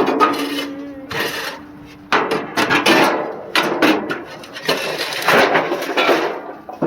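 A tool scraping rust and caked old grease out of the firebox of an old gas grill, in about five or six rough, loud strokes.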